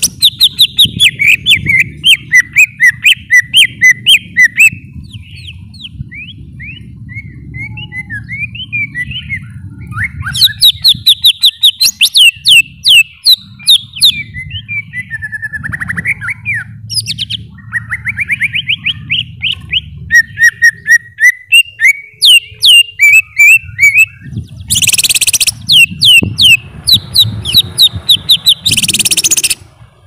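Leafbird (cucak ijo) singing a fast, varied song of rapid rising whistled notes and chattering trills in runs, with two loud harsh rasping bursts near the end. A low rumble runs underneath.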